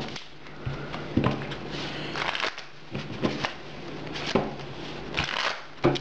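Pokémon trading cards being shuffled and handled: irregular snaps and rustles, with denser runs about two seconds in and again near the end, over a faint steady low hum.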